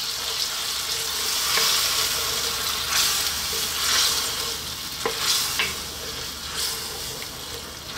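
Tomato sauce with onions and tomatoes sizzling in a wok as a spatula stirs and scrapes through it. A few light clicks of the spatula against the pan come about five seconds in.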